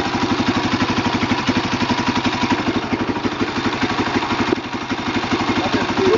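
Husqvarna SMR 610 supermoto's single-cylinder four-stroke engine idling, a steady fast pulse of about ten beats a second, dipping slightly in level about four and a half seconds in.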